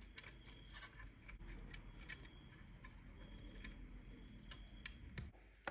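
Faint close-up handling sounds: gloved fingers pressing and smoothing a piece of mesh fabric onto the roof of a diecast model bus, giving small irregular clicks and rubbing, with a sharper click near the end.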